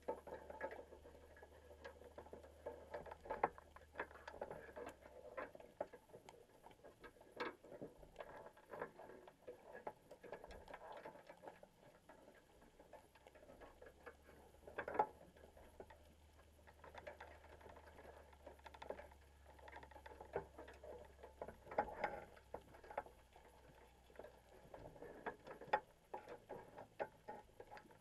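Underwater sound picked up through a camera housing in a baited crab pot: irregular small clicks and taps, with a few louder knocks scattered through. A faint low hum sits underneath; it fades out for a few seconds and then returns.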